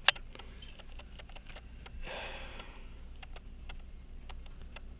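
Small sharp clicks and ticks of handling a disassembled pocket watch's parts at the bench, with one loud click just after the start. A short sniff through the nose comes about two seconds in.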